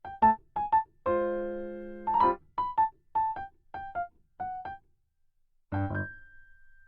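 Light keyboard music, like an electric piano: a melody of short, detached notes, mostly in quick pairs, with a held chord a little after one second and another near the end.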